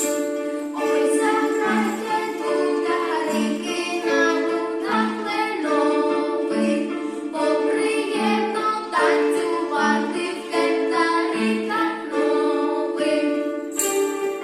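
A folk ensemble sings a Ukrainian folk song in a group, with instrumental accompaniment, and a jingling percussion shake comes in near the end.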